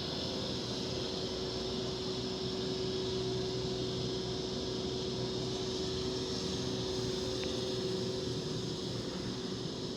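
Hurco VMX50i CNC vertical machining center running under power: a steady mechanical hum with one constant tone and an even hiss.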